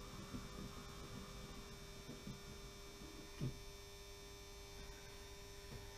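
Faint steady electrical hum from a 60-year-old model railway controller powering a model funicular, with a soft thump about three and a half seconds in.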